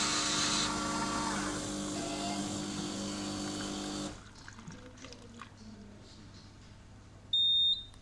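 Coffee vending machine running with a steady hum while it dispenses coffee into a paper cup, stopping abruptly about four seconds in. A few faint clicks follow, then near the end one short, high, loud beep as the drink is done.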